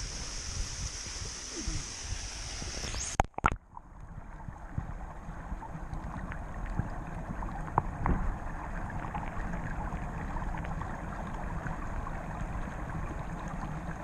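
A small waterfall splashing into a pool, heard in air as a steady hiss. A little over three seconds in come a few sharp knocks as the camera goes under the surface, and from then on the water is heard underwater: a dull, muffled rushing with scattered small clicks.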